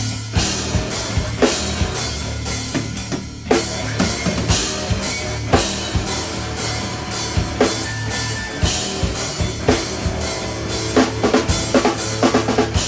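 Three-piece instrumental band playing live, the drum kit's bass drum and snare hitting regularly over sustained low bass notes, with a quick flurry of drum hits near the end.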